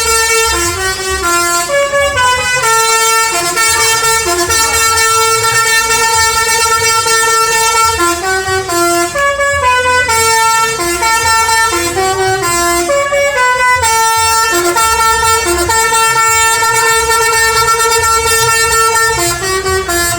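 Basuri telolet bus horn, a multi-tone air horn, playing a quick melody of stepping notes, with a low rumble underneath.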